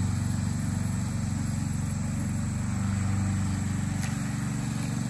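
Gasoline lawn mower engine running steadily under mowing load.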